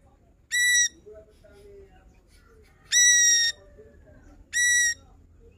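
Ashy drongo singing: three loud, flat-pitched whistled notes, the middle one longest, with faint soft chirps between them.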